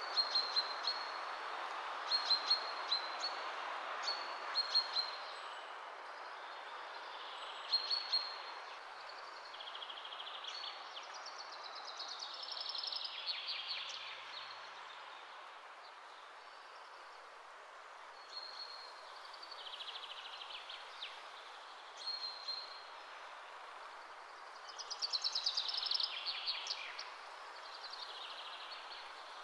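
Birds chirping over steady background noise: clusters of short, high chirps, with a longer falling trill about halfway through and another near the end.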